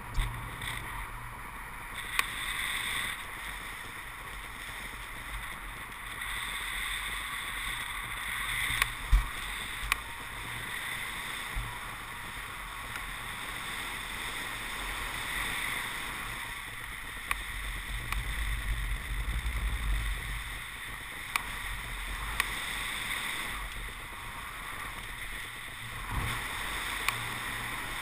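Wind rushing over a camera microphone in paragliding flight: a steady hiss with uneven, gusty low buffeting. A few short knocks, the sharpest about nine seconds in.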